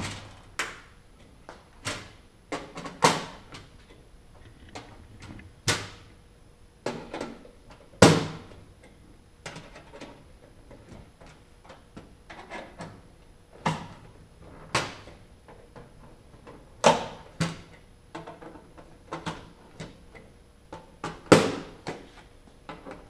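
Dzus quarter-turn fasteners being turned with a Dzus tool and painted metal cowl panels being pressed and adjusted into place: irregular sharp clicks and knocks of metal on metal, a few much louder than the rest.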